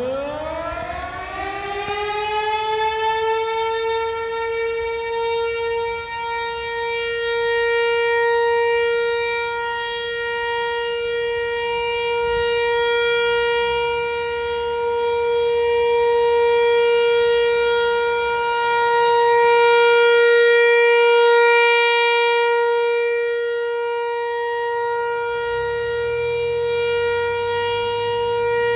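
Outdoor tornado warning siren winding up, its pitch rising over the first few seconds, then holding one steady tone with many overtones while its loudness slowly swells and fades. It is sounding at a scheduled 11 o'clock test.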